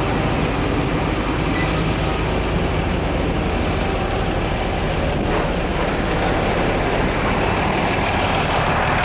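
Large diesel bus engine idling close by: a loud, steady rumble.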